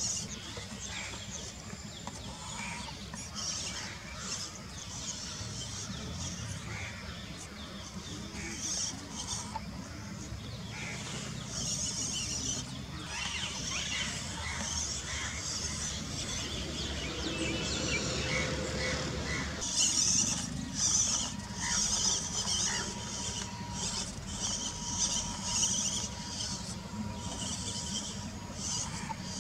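Outdoor ambience: birds chirping again and again over a steady low rumble, the chirping louder in the second half.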